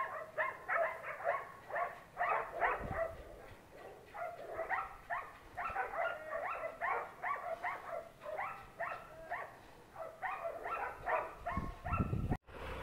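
A dog barking in quick short yaps, about three a second, in runs with brief pauses. A low thump comes near the end.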